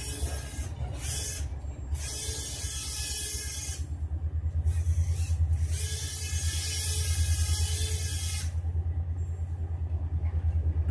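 Small electric motor and propeller of a homemade egg-crate toy biplane buzzing in flight, with a steady low hum and a higher whine that swells and fades several times as the plane circles past.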